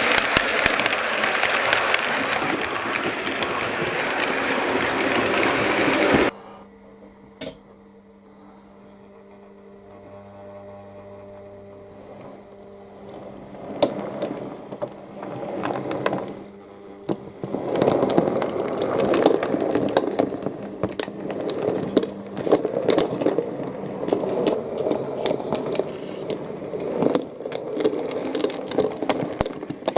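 Model trains running on the layout's track: a rolling, rattling wheel noise with clicks, which cuts off suddenly about six seconds in. A quieter stretch with a steady motor hum follows, and then the rolling and clicking build up again.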